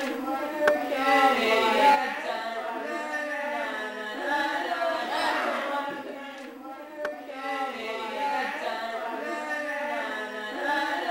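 Music with singing: held, wavering sung notes with no break, the voices slowly changing pitch.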